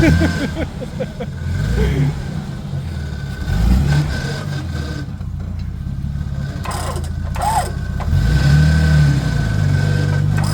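Off-road 4x4 truck engine running at low revs, rising and falling in several short throttle blips as it crawls over rocks and stumps.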